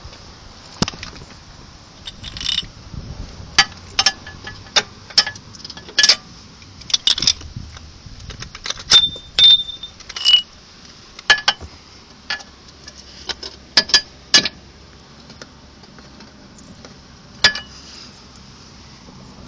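Irregular sharp metallic clicks and clinks, some ringing briefly, from a VW Golf Mk4's front suspension as the shock absorber and wishbone are pushed and levered. The uploader traces the click to the side of the shock absorber, a unit only about six months old.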